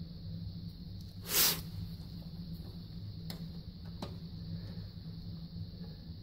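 A screwdriver working a thermostat terminal screw on an electric water heater and a wire being pulled free: one short scraping hiss about a second in, then a couple of light clicks, over a steady low hum.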